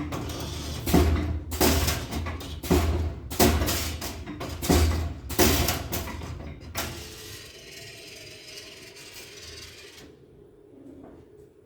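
Background music with a steady beat, a low thump about every two-thirds of a second, fading away over the last few seconds.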